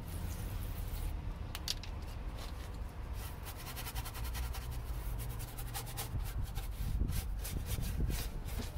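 Small stiff-bristled detailing brush scrubbing cleaning solution into the wet, undersealed inner wheel arch of a car, in quick repeated strokes.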